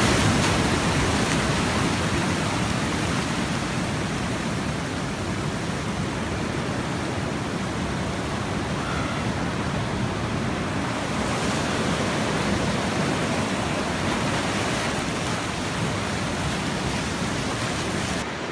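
Ocean surf washing and foaming over rocks, a steady rushing hiss of white water.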